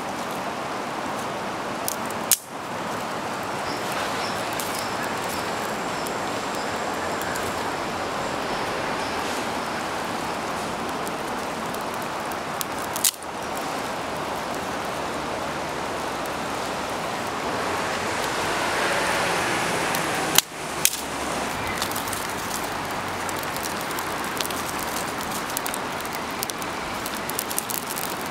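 Steady rushing of a river, with three short sharp clicks spread through it and a run of small ticks near the end.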